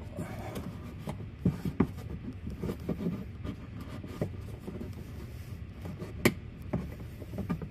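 Screwdriver tip scraping and clicking against a plastic push-clip in a plastic wheel-well liner as it is wiggled to pry the clip loose. The sound is irregular rubbing with scattered small clicks, the sharpest one about six seconds in.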